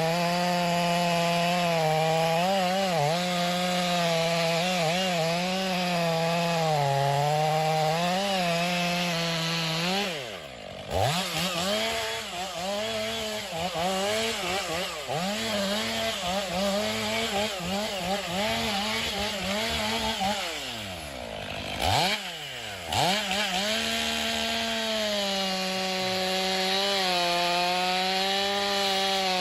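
Two-stroke chainsaw running at high revs, cutting into wood, its pitch wavering as the chain bites. Twice, about a third and three-quarters of the way in, the revs drop briefly and climb back up.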